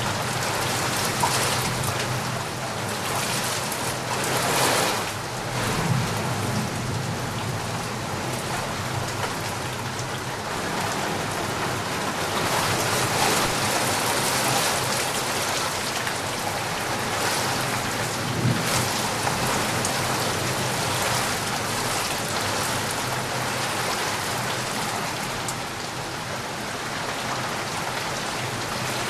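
Steady rain falling and pattering on surfaces, an even hiss that swells briefly about four to five seconds in.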